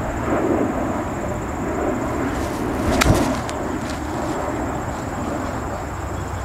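A golf iron striking the ball once, a single sharp click about three seconds in, on a short pitch shot from the grass, with wind rumbling on the microphone throughout.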